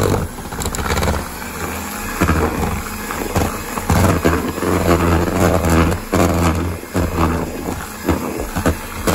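Electric mixer running, beating butter and confectioner's sugar together, with a steady motor hum whose loudness swells and dips as the beaters work through the mixture.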